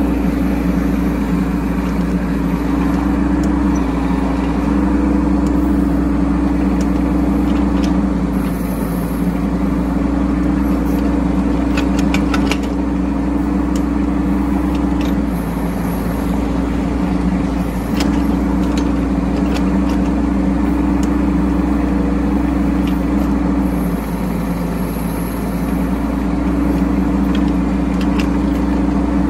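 Bobcat E10 mini excavator's diesel engine running steadily under working load while it digs a trench, its pitch dipping and recovering slightly every few seconds as the hydraulics take up load. There are a few short clicks and knocks along the way.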